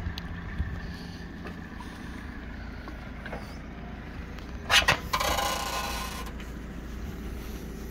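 Backhoe loader's diesel engine running steadily as its bucket works in the flooded pit. About five seconds in come a few sharp clicks and a short rustling burst, the loudest sounds heard.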